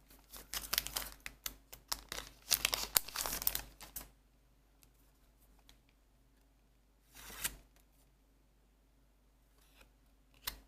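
Crinkling and rustling of Weiss Schwarz trading cards and their booster-pack wrapper being handled, in a dense burst over the first four seconds. One more short rustle comes about seven seconds in, and a couple of small clicks near the end.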